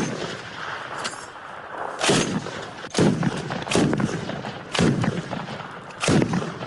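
Kord 12.7 mm heavy machine gun firing a string of short bursts, about six, spaced roughly a second apart, each trailing off after the shots.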